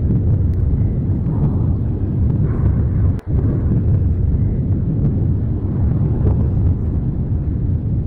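Lava fountaining at Mount Etna's Voragine crater: a loud, continuous deep rumble with a few scattered sharp cracks, which drops out for an instant about three seconds in.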